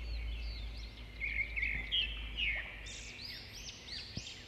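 Small birds chirping, a quick run of short high notes that rise and fall, over a low steady hum, with a light tap near the end.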